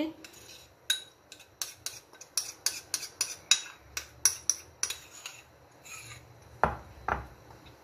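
Metal spoon clicking and scraping against a bowl as mayonnaise paste is scooped out onto a slice of bread: a quick run of light clinks, then two heavier knocks near the end.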